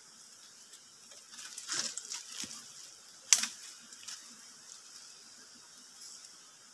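Footsteps crunching and rustling through dry leaf litter and twigs, with a sharp crack about three seconds in and a few lighter crackles after it.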